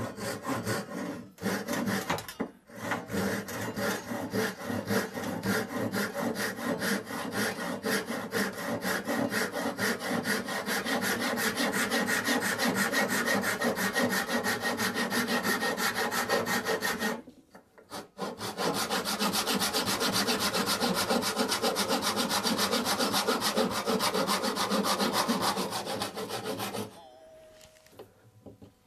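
Saw cutting through a walnut chair leg in rapid, even back-and-forth strokes, to break the old leg apart so the stretcher joined into it comes out intact. The sawing pauses briefly a little past halfway and stops shortly before the end.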